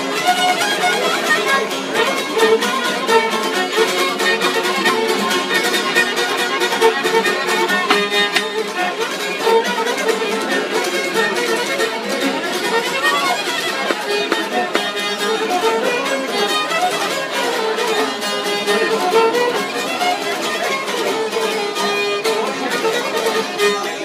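Albanian folk music played live: a violin carries the melody over plucked long-necked lutes strummed in a steady rhythm, with no singing.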